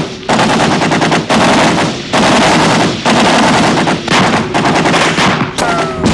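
Automatic gunfire: a run of long machine-gun bursts, each about a second long, with short breaks between them.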